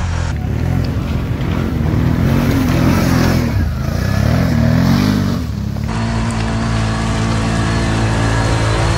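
ATV engines revving up and down repeatedly under throttle. About six seconds in the sound changes abruptly to an engine holding a steady note.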